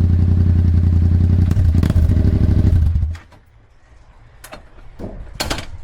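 Yamaha MT-07's parallel-twin engine idling steadily through a Musarri exhaust fitted with only a mesh end cap and no baffle, a bit too loud. It is switched off about three seconds in, and a few clicks and knocks follow.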